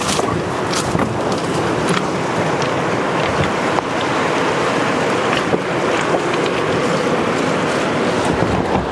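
Fast river rapids rushing in a steady, loud wash of water, with wind on the microphone and a few light clicks and knocks.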